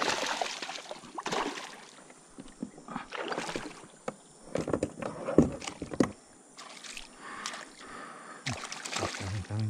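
Irregular splashing and sloshing of water beside a kayak as a hooked fish is fought in, with a few sharp knocks.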